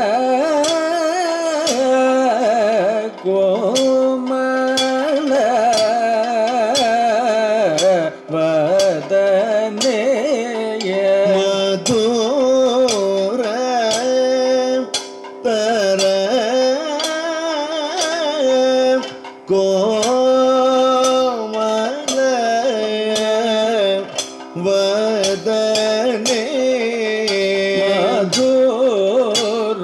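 Kathakali vocal music: a singer holds long, ornamented, wavering notes of a padam over sharp percussion strokes that come many times throughout.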